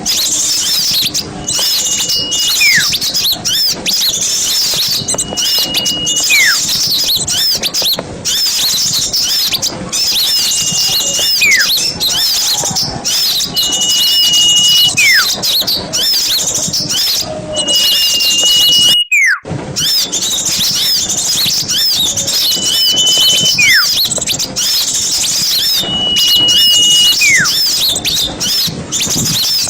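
Recorded small songbirds chattering densely and high-pitched, with a clear whistled note followed by a short falling slur repeating about every four seconds. The sound breaks off briefly about two-thirds of the way through.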